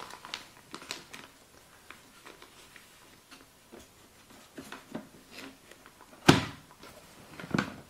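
A vacuum sealer and its plastic bag being handled and set up: scattered light clicks and rustles, then a sharp clack about six seconds in and a smaller one just over a second later.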